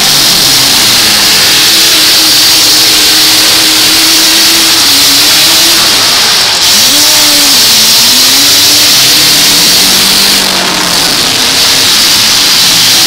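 Several demolition-derby pickup truck engines revving, their pitch rising and falling as the trucks accelerate and back off, over a dense, loud wash of noise.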